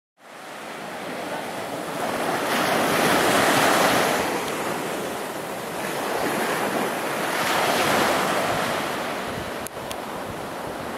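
Surf breaking and washing up a sandy beach, swelling and easing every few seconds, with wind on the microphone.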